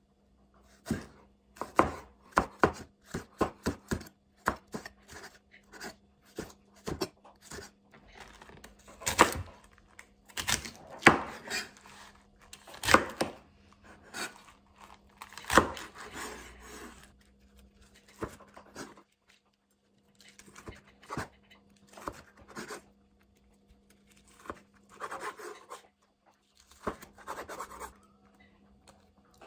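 Chef's knife chopping on a bamboo cutting board, first a quick run of sharp knocks through green onion, then slower, louder cuts through napa cabbage. Softer handling noises follow near the end.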